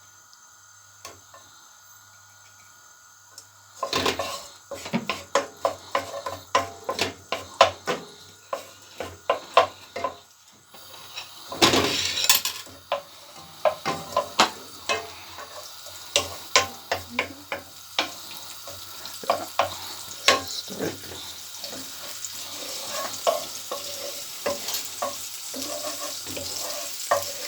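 Onion and spring onion frying in hot coconut oil in a pan while a utensil stirs them, with repeated clatter and scraping against the pan. It starts after a few quiet seconds, and the sizzle grows steadily toward the end.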